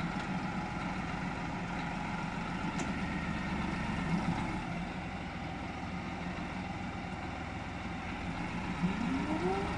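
Deutz-Fahr 5080D tractor engine running steadily while the tractor works its front loader in a manure heap, with a short rising note about nine seconds in.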